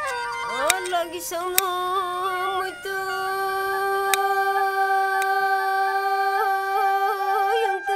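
Background music: a slow melody of long held notes with small ornaments, gliding up near the start. A few sharp clicks sound over it in the first half.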